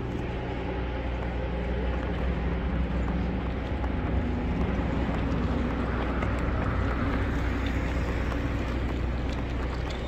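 City street ambience: a steady low rumble of traffic that swells for a few seconds in the middle, as of a vehicle going by.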